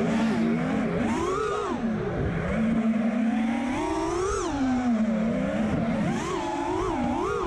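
Freestyle FPV quadcopter's brushless motors and propellers whining, the pitch swelling and falling with each throttle punch: a sharp rise about a second in, another around four seconds, and three quick ones near the end.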